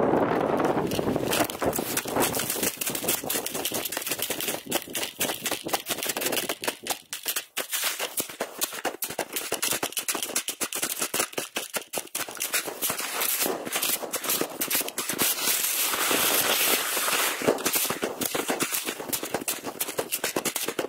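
Dense, irregular crackling close to the microphone, many sharp clicks a second, without a pause.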